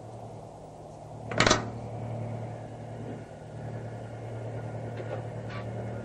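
Two sharp clacks from a wall-mounted electrical box as it is worked by hand, one about a second and a half in and another near the end, over a steady low hum.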